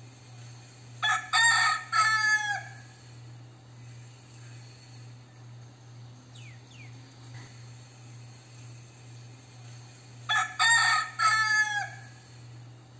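A crossbred gamecock rooster crowing twice, about a second in and again near the end, each crow lasting about two seconds and ending in a falling tail.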